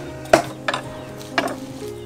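Fresh leafy vegetable stems snapped by hand: three crisp snaps within about a second and a half, the first the loudest. Background music with held notes plays under them.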